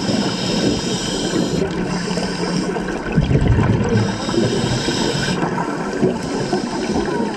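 Scuba regulator breathing picked up by an underwater camera: a hiss on each inhale, twice, with a rush of exhaust bubbles between and after.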